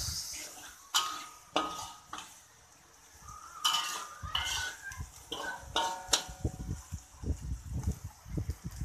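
Metal spatula scraping and clanking against a metal wok as a chili spice paste is stirred. Several of the knocks ring briefly, with a quiet spell about two seconds in.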